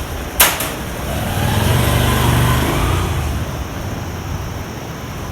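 A sharp click, then a motor vehicle passing by: its engine sound swells and fades over about three seconds, rising and then falling in pitch.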